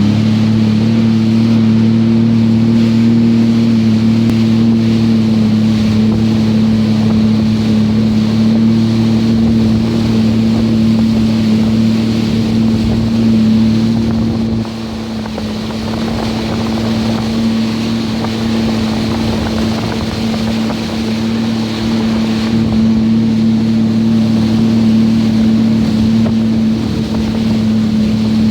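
Jet ski engine running at a steady pitch, a constant drone over water rush and wind on the microphone; about halfway through it eases and gets a little quieter.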